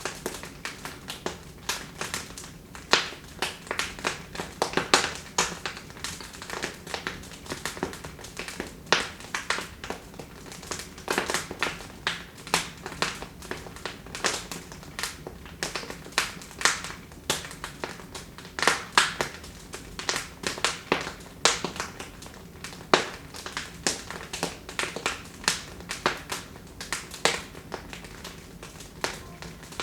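Wood fire crackling in a fireplace: irregular sharp pops and snaps, several a second, over a faint steady hiss of burning.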